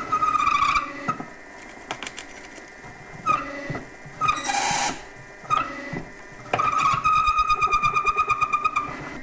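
A large step drill in a mini mill cutting through a metal plate under heavy load, giving a high squeal that comes and goes. The squeal pulses several times a second in its last stretch. Between the squeals there is quieter scraping with scattered clicks and a short harsh hiss about halfway through.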